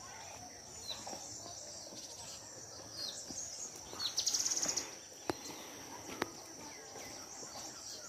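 Insects droning steadily at a high pitch, with a short, fast-pulsing trill about four seconds in. Two sharp clicks come a little after.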